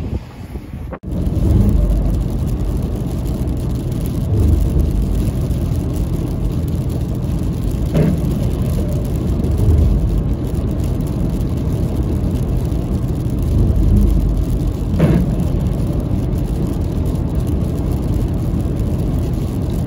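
Road noise heard from inside a moving car: a steady low rumble of tyres and engine, starting abruptly about a second in. Two short knocks stand out briefly partway through.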